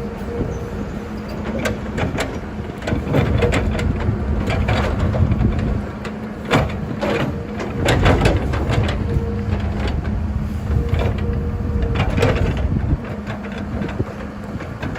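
Excavator's diesel engine running under load with a steady drone, with scattered knocks and clatters, most of them through the middle stretch.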